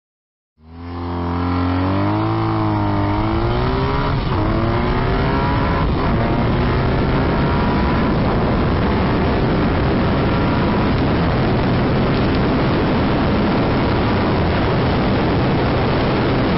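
BMW R nineT's air/oil-cooled boxer twin ridden hard at high speed, its pitch rising and dipping through gear changes in the first few seconds, then holding steady under heavy wind rush.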